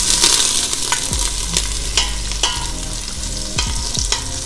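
Chopped onion and garlic sizzling in the stainless steel pot of a multicooker on sauté, stirred with a utensil that scrapes along the pot and knocks against it in several sharp clicks.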